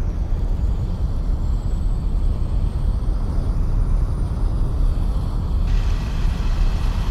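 Cinematic sound effect for an animated logo intro: a deep, steady rumble with a faint slowly rising whistle above it, and a hiss that swells in about three-quarters of the way through.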